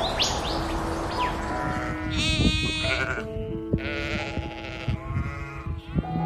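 Sheep bleating, several wavering bleats starting about two seconds in, over soft background music with long held notes. Before that, a few quick bird chirps.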